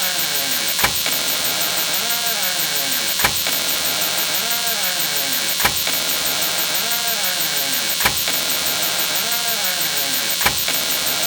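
A door-opening sound effect repeating about every two and a half seconds: a sharp click followed by a creak that rises and falls in pitch, over a steady hiss.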